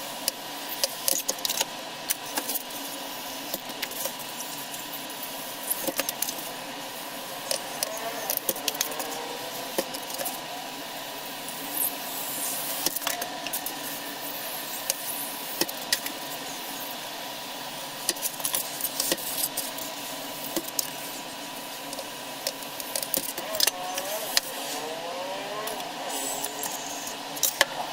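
Hot-wire foam cutter slicing through polystyrene foam: the foam squeaks in wavering squeals, clearest about a third of the way in and again near the end, over scattered crackles and a thin steady tone.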